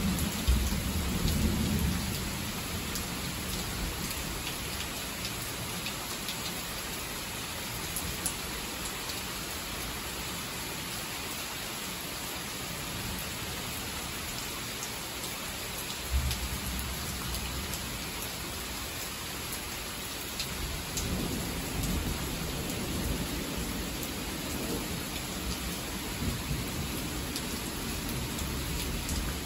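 Thunderstorm: heavy rain pouring steadily. Low thunder rumbles in the first couple of seconds and comes back about halfway through, rolling on to the end.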